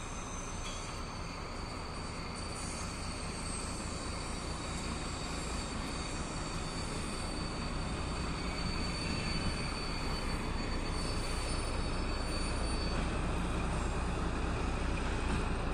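TGM4A diesel shunting locomotive moving along the track, its diesel engine droning steadily and growing gradually louder. A thin, steady, high-pitched wheel squeal runs through the middle for several seconds.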